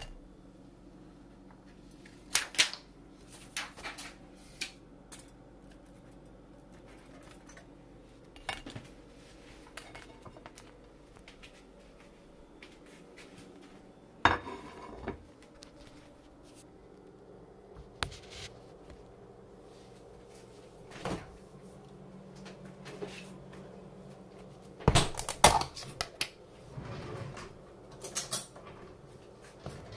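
Scattered clinks and knocks of a ceramic plate and a table knife being handled on a kitchen counter, with a cluster of louder knocks near the end. A faint steady hum runs underneath.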